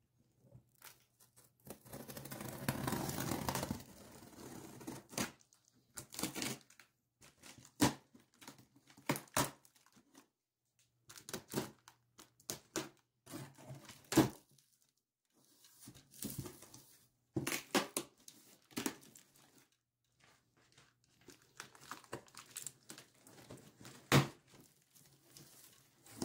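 Packing tape on a large cardboard carton being slit and torn open, loudest in one long tearing stretch about two seconds in. After that come short scrapes, rustles and knocks as the cardboard flaps are handled and pulled open.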